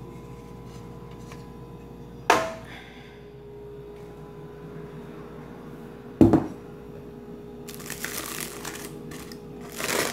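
A metal clank with a short ring, then a ceramic bowl set down on a table with a thump, then aluminium foil crinkling as it is pulled open over the steamed food, under a faint steady hum.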